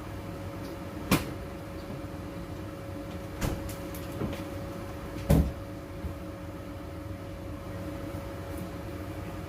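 A steady hum with several sharp knocks, the loudest about five seconds in.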